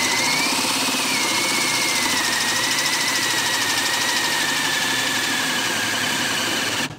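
HART 20V cordless drill running under load as a 1-inch spade bit bores into a wooden post, a steady motor whine that slowly drops in pitch as the bit bogs deeper into the wood. Near the end it cuts out abruptly: the drill shuts off under the load and needs its battery pulled to run again.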